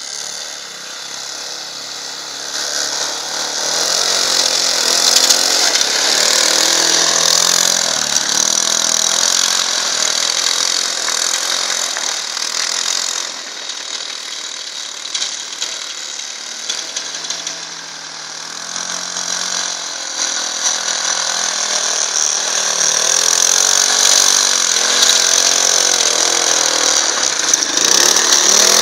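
Small engine of a Leshy 2x2M two-wheel-drive fat-tyred motorcycle running and revving up and down as it is ridden through snow, getting louder near the end as it comes close.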